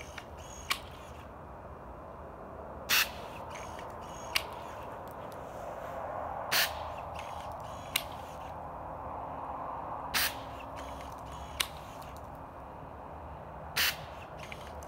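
Homemade steel wool firework launcher firing four times at a steady pace, a short burst about every three and a half seconds as each charge of burning steel wool is thrown up, each followed about a second and a half later by a sharp click.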